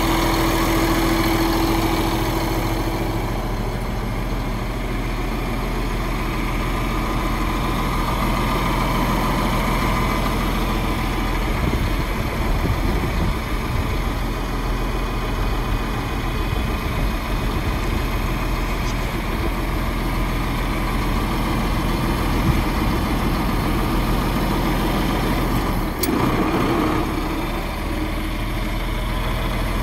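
John Deere tractor's diesel engine idling steadily, with a single sharp knock about 26 seconds in.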